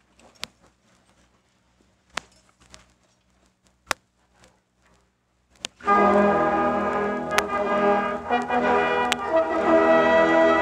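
A few sharp clicks over near-quiet surface noise, then about six seconds in a high school symphonic band comes in loudly with held brass chords.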